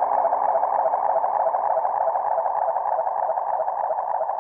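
Organ-style drone from a Casiotone MT-400V keyboard run through a Make Noise Strega and Behringer echo and reverb pedals. It is a dense, fluttering mid-pitched wash of echoes that slowly fades out.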